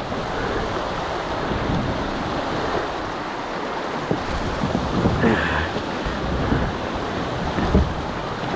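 Rushing river water in shallow rapids, with wind buffeting the microphone and a few dull knocks and splashes about four, five and eight seconds in.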